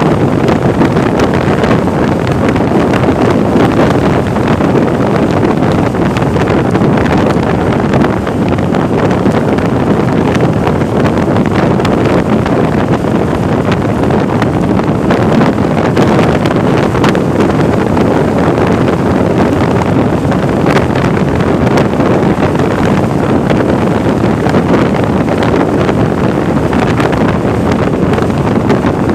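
Loud, steady wind rush buffeting the microphone of a camera riding on a moving Vespa 300 scooter, with the scooter's road noise blended in.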